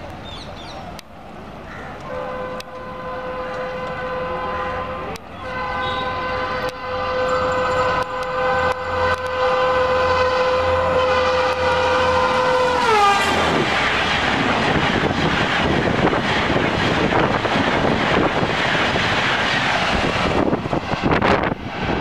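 Indian Railways express locomotive sounding one long, steady horn blast as it approaches at speed; about 13 seconds in the horn drops sharply in pitch as the train passes. Then comes the loud rushing of the coaches speeding by.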